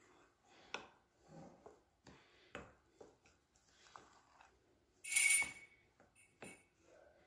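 Metal spoon scraping and tapping in a glass mixing bowl while stirring crumbly flour and oil, with a few light clicks. About five seconds in there is one loud ringing clink of the spoon against the glass that dies away within half a second.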